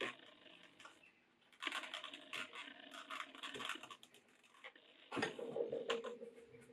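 Thread drawn through the stitching holes of a leather knife sheath during hand stitching: two scratchy, rasping pulls, the first about two seconds long and the second shorter, with a faint squeaky note as the thread is drawn tight.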